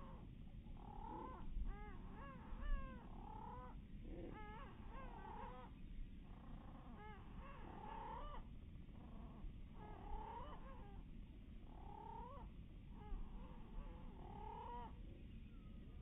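Least tern calls played back slowed down, so they sound much lower and drawn out: a string of repeated calls, about one a second, each rising and then falling in pitch.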